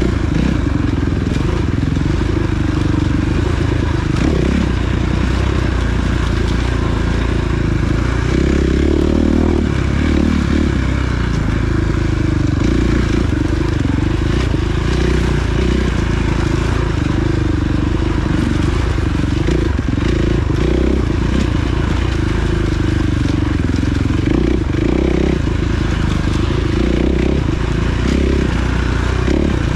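Off-road motorcycle engine running continuously, its note rising and falling with the throttle, heard from an onboard camera with wind rumble and trail clatter underneath.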